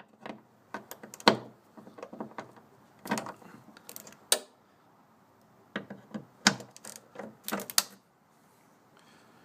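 Socket ratchet clicking in three bursts as a 10mm socket unbolts a hood latch, stopping about eight seconds in.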